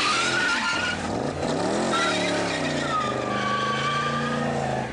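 Chevrolet Corvette C4's V8 revving up and down as the car spins donuts, with its rear tyres squealing in high, wavering tones.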